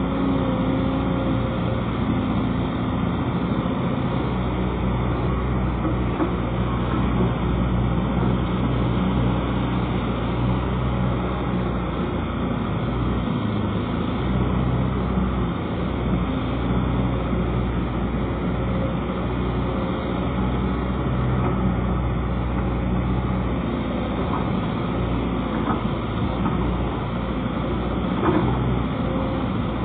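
Excavator's diesel engine running steadily, its note shifting a little at times as the machine works.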